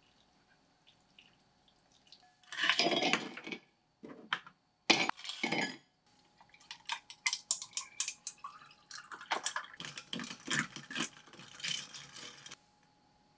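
Kitchen handling sounds: a spoon scraping noodles and sauce out of a pot into a dish, a few knocks, then a run of sharp glassy clinks and trickling liquid as a drink is made and stirred in a stemmed glass.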